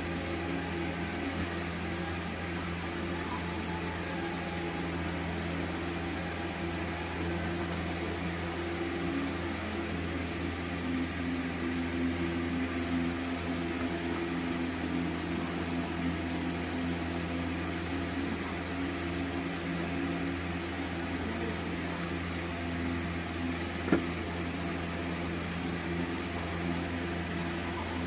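A steady low mechanical hum, like a motor or fan running, with one sharp click near the end.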